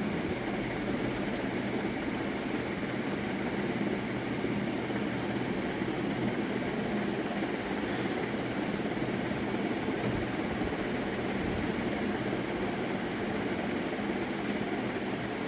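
Steady mechanical hum and hiss at an even level, with two faint clicks, about a second in and near the end.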